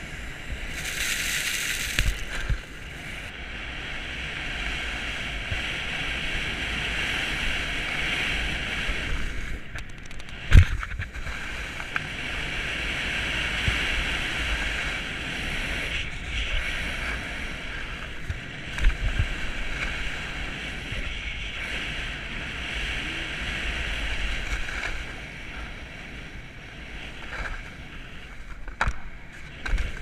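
Snowboard sliding and carving over groomed snow, a steady hissing scrape that swells and eases with the turns, with wind rumbling on the microphone. A sharp thump about ten seconds in, and smaller knocks later on.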